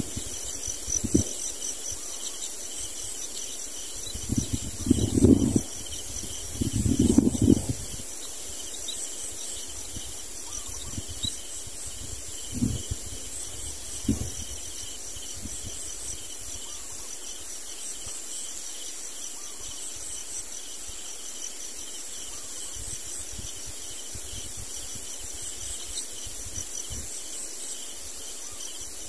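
Steady chorus of insects trilling in high, rapidly pulsing notes. Two loud low rumbles come about five and seven seconds in, with a few short low knocks.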